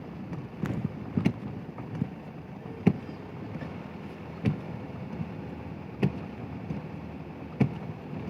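Steady vehicle and road rumble, broken by a sharp knock every second or so.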